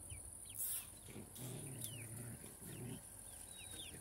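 A low, rough, pulsing animal call lasting about two seconds, with faint short high chirps of small birds or chicks scattered through it and a brief rustle about half a second in.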